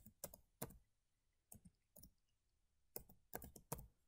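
Faint computer keyboard typing: about eight separate keystrokes at an uneven pace.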